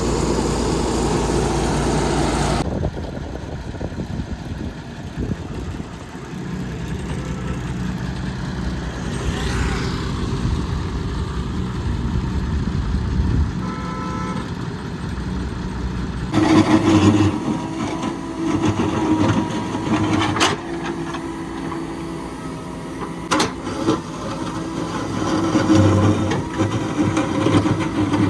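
Engines of heavy road-building machinery running steadily, the sound changing abruptly twice as shots cut, with a few sharp knocks in the later part.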